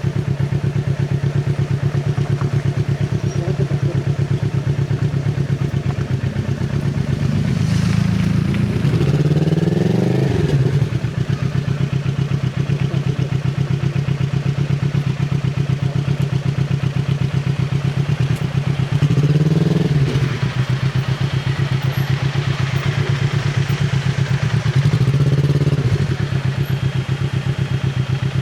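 Kawasaki Z650RS 649 cc parallel-twin running through an IXIL full exhaust with its dB killer fitted, pulling at low revs. Three times the throttle opens briefly and the note rises and falls back, a little after a quarter of the way in, about two-thirds in, and near the end.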